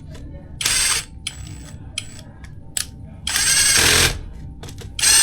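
Tool work: scattered sharp clicks and three short bursts of noise, each well under a second, about half a second in, just past three seconds, and at the very end.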